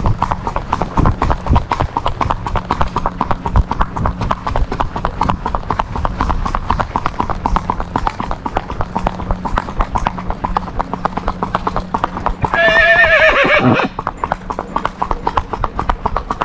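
A horse's hooves striking an asphalt road in a rapid, even gait (the Puerto Rican 'andares'). About thirteen seconds in a horse gives one wavering whinny of just over a second over the hoofbeats.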